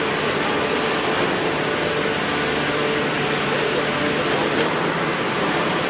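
QTM6-25 mobile egg-laying concrete block machine running, its electric motors giving a steady mechanical hum with a faint held tone.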